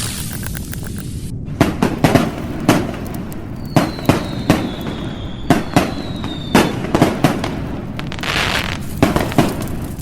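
Fireworks going off: a run of sharp bangs at uneven intervals over a steady rumble. A thin whistle falls slowly in the middle, and a crackling burst comes near the end.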